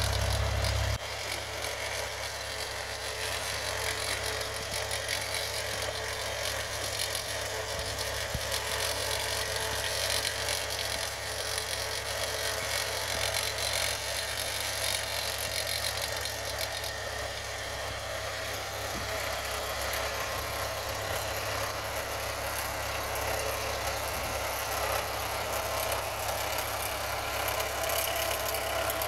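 Vintage tractor engine running steadily as it tows a gang of cylinder (reel) mowers across grass, the mower reels spinning as they cut.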